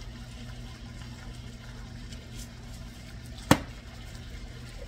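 A steady low hum with one sharp click from a plastic seasoning canister about three and a half seconds in, as the shaker is handled and put down on the counter.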